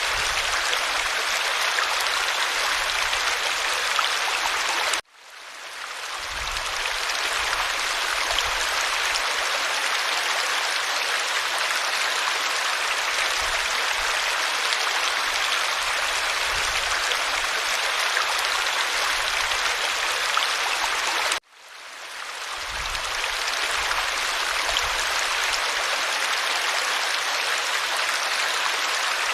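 Stream water flowing and babbling in a steady rush. It cuts out abruptly about five seconds in and again about twenty-one seconds in, fading back up each time.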